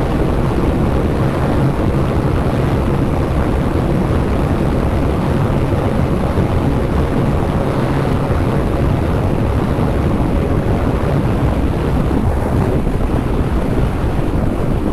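Wind rushing over the microphone, over the steady drone of a Bajaj Dominar 400's single-cylinder engine cruising at speed.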